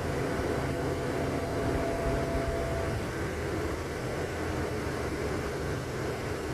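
Steady rumble of a moving vehicle, with a faint whine that fades out about three seconds in.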